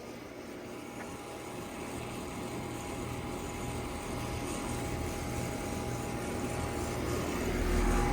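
2007 Heil Quiet Comfort air conditioner's outdoor unit running with a steady hum that slowly grows louder, with a deeper hum joining near the end. It doesn't sound good, which the filmer takes as a sign that a new compressor may be needed.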